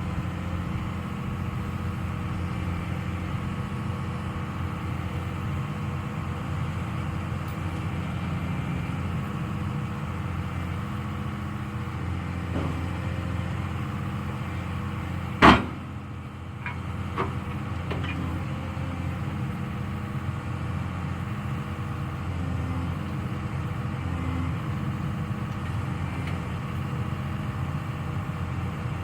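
Heavy diesel engine of logging equipment running steadily, with one loud sharp knock about halfway through, followed by a few lighter clicks.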